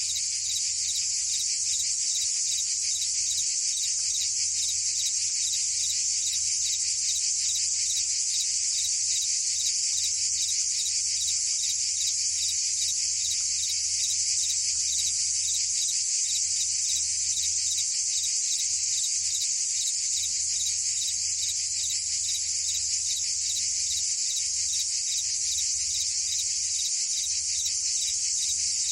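Dense chorus of cicadas and crickets: a continuous, steady, high-pitched shrill made of very rapid pulses, with no break or change.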